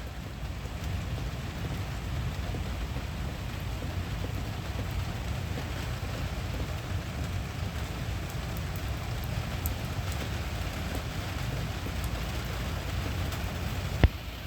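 Steady heavy rain falling in a severe thunderstorm, with a constant low rumble underneath. A single sharp click near the end.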